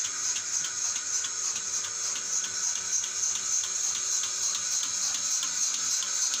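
Single-bucket milking machine running under vacuum: a steady hiss with the even clicking of its pulsator, about four clicks a second.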